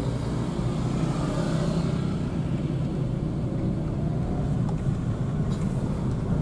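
Steady cabin noise of a Mitsubishi car being driven, heard from inside: low engine and road rumble.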